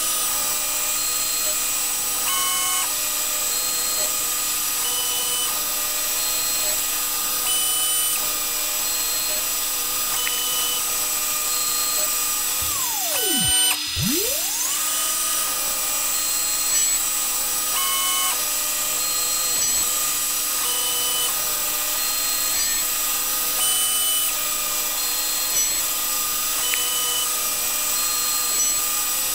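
Spindle of a DIY-converted CNC milling machine drilling small holes, running at a steady high whine. It winds down and stops about 13 seconds in, then spins back up and runs on, with brief higher chirps every couple of seconds. The footage is played sped up.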